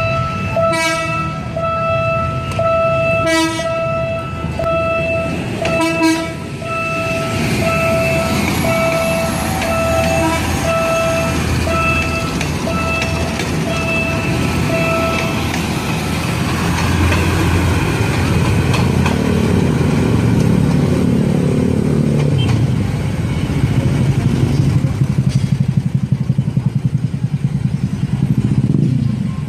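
Philippine National Railways commuter train passing close by, its horn sounding in a long series of short repeated toots for about the first fifteen seconds. The heavy rumble of the cars on the rails follows, with a rapid wheel clatter near the end.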